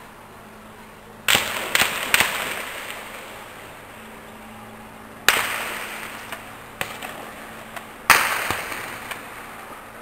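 Gunshots echoing across a valley at night: a loud shot about a second in with two more quickly after it, another about five seconds in, and a last loud one near the end, each followed by a long rolling echo.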